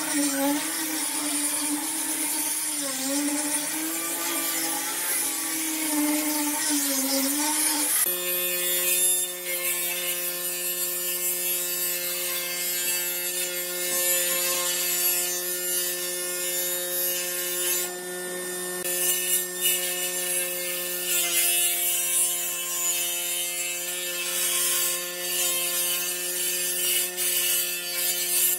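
An angle grinder with a sanding pad running on a pine board, its motor pitch dipping and recovering as it is pressed and moved. About eight seconds in, this gives way to a jointer-planer running at a steady pitch, with the rasping of its cutterhead planing the pine board as it is fed across, louder in stretches as the cuts are made.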